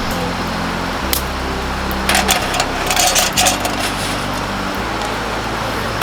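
Background music with sustained low notes that change every second or so, with a cluster of sharp crackles and clicks near the middle.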